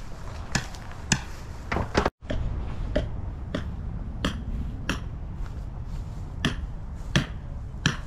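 Hammer blows on a grounding rod being driven into the ground: sharp metallic strikes, about one every 0.7 s, with a brief break about two seconds in.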